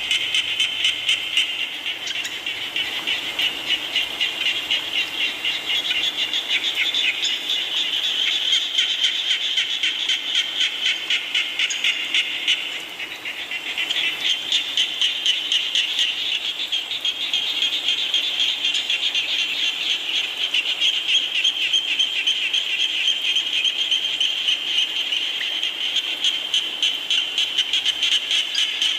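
A chorus of frogs calling in quick, regular pulses, with a brief lull a little before halfway through.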